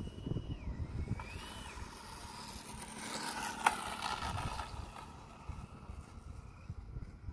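Electric ducted fan (70 mm, 12-blade) on an RC truck whining, its pitch rising and falling twice with the throttle, then swelling into a rushing hiss around the middle with one sharp click, and fading away near the end, over a low rumble.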